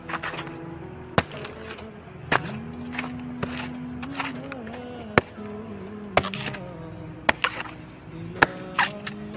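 A machete chopping into a palm trunk: sharp, separate blows about once a second into the soft, fibrous wood. A melody with a singing-like voice runs underneath the chops.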